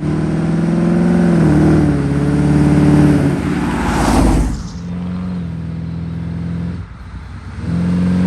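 A vehicle engine running, its pitch stepping down about a second in and shifting again after a short rising whoosh around four seconds in.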